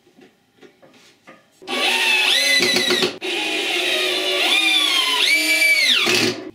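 Makita cordless drill driving screws into wooden spacers: the motor whines, rising and falling in pitch as the trigger is eased and squeezed, with a short stop about three seconds in. Before it starts, a few light knocks of wood being handled.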